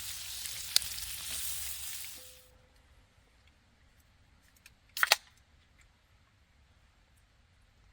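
Food frying and sizzling in a pan, with one sharp pop about a second in, fading out after about two seconds. Then near quiet, broken by a quick double clack about five seconds in.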